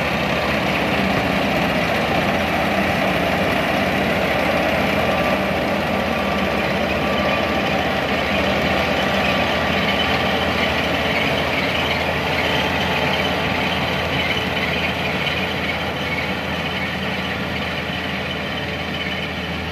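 Kubota tracked combine harvester running steadily as it cuts standing rice: its diesel engine and threshing machinery make one constant drone, loud and even throughout.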